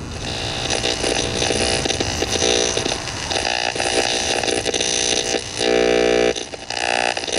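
1961 Telefunken Gavotte 5353 W tube radio being tuned across the dial between stations: buzzing, whining interference and static from its speaker, changing as the knob turns, with a louder steady buzz for about half a second near the end.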